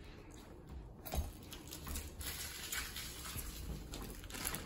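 Light rustling with scattered small clicks and taps from hands working on a TV and picking up its small parts, with a sharper click about a second in.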